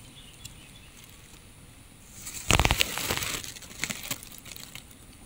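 Low background hush, then a short rustle with a few sharp clicks from about two to four seconds in: handling noise as the baited fishing line is lowered back into the eel hole.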